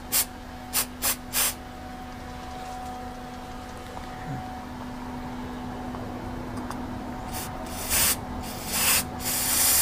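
Aerosol can of CRC mass airflow sensor cleaner spraying onto a removed MAF sensor. Four short spurts come in the first second and a half, and longer sprays follow near the end.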